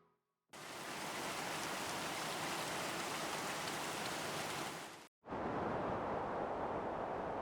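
Steady hiss of falling water, even and unbroken, in two stretches with a short break about five seconds in.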